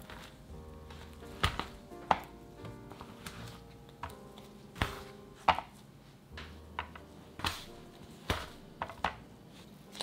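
A plastic dough scraper chopping through chocolate chip cookie dough and knocking on the countertop, with about ten sharp, irregular taps, over soft background music.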